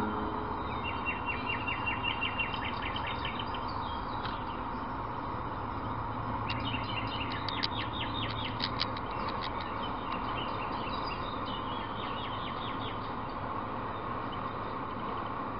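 Steady road and engine noise of a car cruising on a motorway, heard from inside the cabin. Over it come several bursts of rapid, high-pitched ticking chirps: one about a second in, a louder one midway, and a fainter one later.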